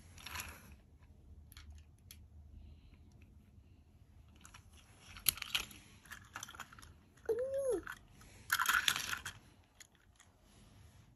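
Thomas & Friends toy trains clicking and clattering as they are handled and set down on a bedsheet, with a burst of rustling about eight and a half seconds in. A short rise-and-fall voice sound, like a hum, comes about seven seconds in.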